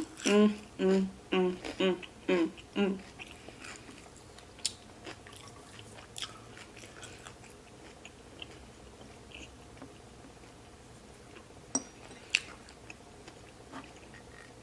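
A person chewing food close to the microphone, with scattered wet clicks and crunches. A few short hummed or mumbled voice sounds come in the first three seconds.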